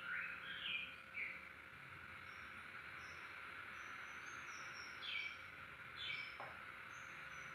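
White-rumped shama giving short chirping calls, a few in the first second and a couple more about five seconds in, with fainter high notes between, over a steady background hiss.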